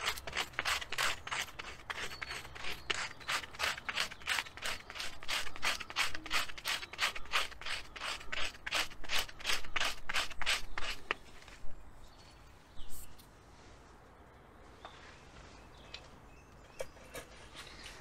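Hand saw cutting through dead wood in regular rasping strokes, about three a second, stopping about eleven seconds in; a few light knocks follow.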